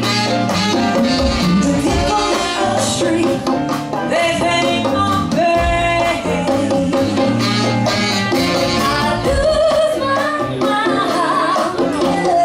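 Live funk band playing, with female vocals over electric bass, drum kit, electric guitar, keyboards and hand percussion.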